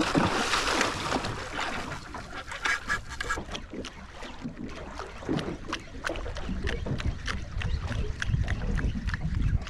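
Small boat on a choppy sea: water slapping and splashing against the hull, with a burst of splashing at the start, many short sharp ticks throughout and a low rumble toward the end.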